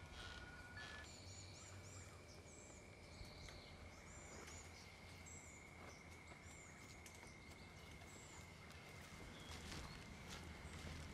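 Quiet rural outdoor ambience: a few birds chirping in short, high calls, mostly through the first eight seconds, over a faint steady high tone and low background rumble.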